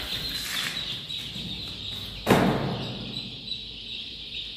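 A large flock of young chicks peeping together in a dense, continuous chorus. One sharp thump cuts in a little past halfway.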